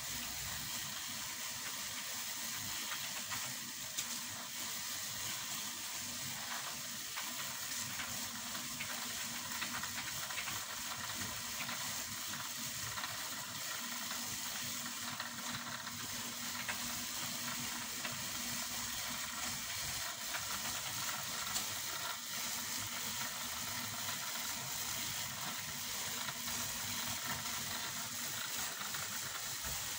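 A steady hiss with faint, scattered crackles.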